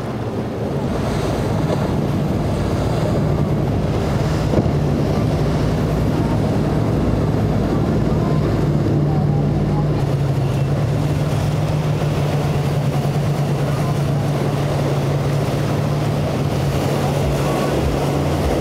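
Motorboat engines running with a steady low drone as boats power through rough inlet water, with the splash of waves and hull wash and wind buffeting the microphone.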